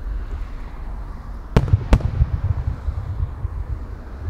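Two 10-inch (10-go) aerial firework shells bursting about a third of a second apart: two sharp bangs, each followed by a low rolling echo. A low wind rumble on the microphone runs underneath.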